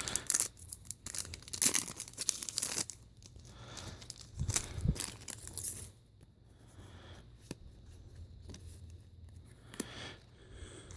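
Foil booster-pack wrappers and trading cards being handled: crinkling and rustling with short tearing crackles, busiest in the first three seconds and again about four seconds in, then fainter and sparser.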